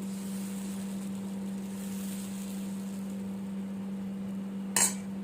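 Dosa batter cooking on a hot tawa with a faint hiss, over a steady low hum. A single sharp clack, like a utensil knocking, comes near the end.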